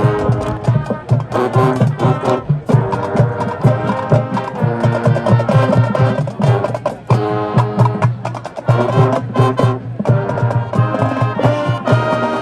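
High school marching band playing a field-show arrangement: brass carrying the tune over drumline percussion beating out a busy rhythm.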